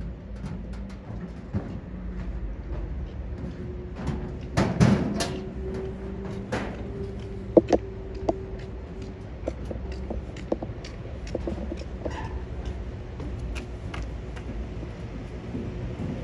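Outdoor ambience: a steady low mechanical hum with a faint held tone, scattered clicks and knocks, a louder clatter about five seconds in and two sharp knocks a little later.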